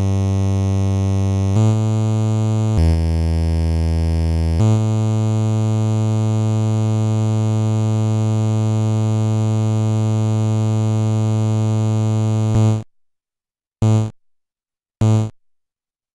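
Amiga OctaMED synth instrument playing a low tone that steps to a new pitch three times in the first five seconds, then holds at an even volume for about eight seconds and cuts off sharply. Two short blips of the same tone follow near the end.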